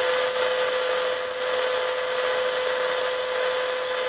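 Steady hiss from a shortwave receiver's speaker: the bridge's noise generator heard through the receiver while the bridge is being nulled. A steady tone runs through the hiss.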